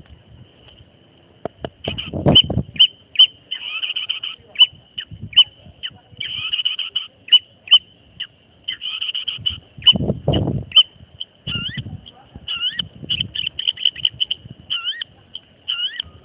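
Long-tailed shrike (cendet) calling: a long run of sharp, quick chips at one high pitch, broken by stretches of harsh chattering, with a few rising whistled notes near the end. Two short low rumbles come about two seconds in and about ten seconds in.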